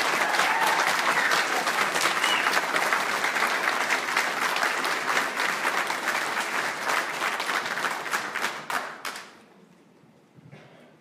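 Audience applauding, many hands clapping at once, fading away about nine seconds in.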